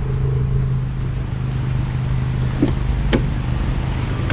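Dacia Duster's engine idling with a steady low hum, and two sharp clicks about two and a half and three seconds in as the rear door handle and latch are opened.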